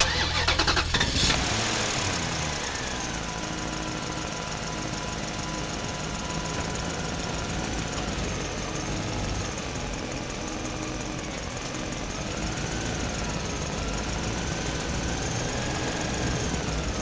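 Engine-like running sound for a toy mini pickup truck, a little louder at first and then steady, with a faint whine that wavers up and down in pitch.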